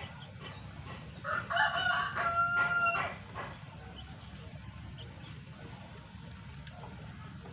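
A rooster crowing once, starting about a second in and lasting under two seconds: a few short broken notes, then a long held final note.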